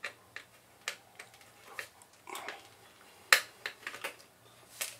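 Small screwdriver backing a screw out of a Mac Pro's aluminium optical-drive carrier: scattered light metal clicks and scrapes, with one sharper click about three seconds in.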